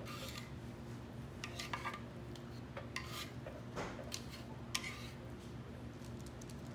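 Salad servers tossing cubed raw fish and chopped vegetables in a wooden bowl: irregular clicks and scrapes as the servers knock against the wood. A faint steady low hum sits underneath.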